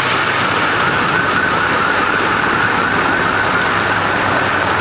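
Muddy floodwater rushing and splashing around a car's wheels, with a steady siren-like tone wavering rapidly up and down over it.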